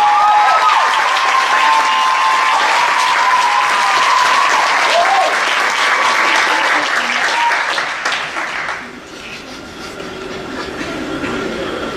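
Theatre audience applauding and cheering at the end of a musical number. The applause dies down about nine seconds in.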